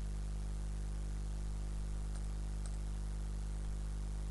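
Steady low electrical hum with a faint hiss, and two faint mouse clicks about two seconds in, half a second apart.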